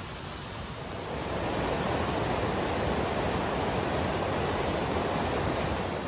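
Steady rush of a mountain creek, a noise without pitch that swells about a second in and then holds.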